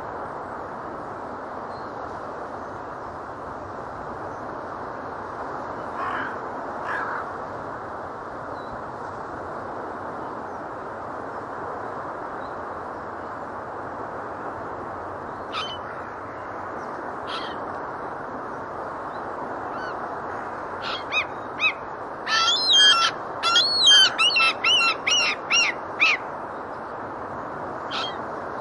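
Seagulls and geese calling over a steady background rush: scattered single calls, then a rapid run of loud, repeated calls about three-quarters of the way through.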